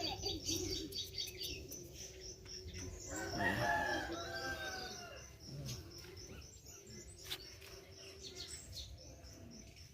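A rooster crows once, about three seconds in, over a faint, high, rapidly pulsing chirp.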